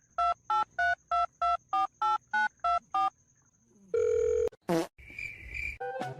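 Touch-tone phone keypad dialing: ten short two-tone beeps, about three a second, as a number is keyed in. After them come a few louder, different electronic tones.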